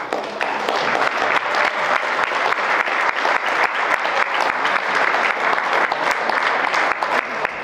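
Audience applauding, a dense patter of many hands clapping that starts abruptly and keeps up steadily.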